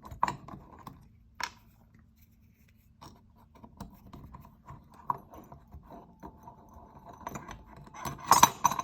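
Screws being backed out of a tensegrity table's arm with a screwdriver: small clicks and scraping, with a pause near the start, then louder clinks of small metal parts near the end.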